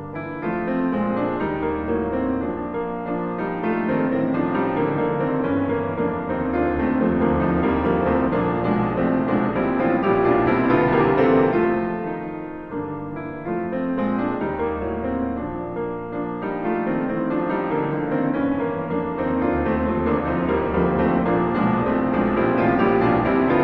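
Solo piano music from a recital recording, many notes played continuously, with a short softer passage about halfway through.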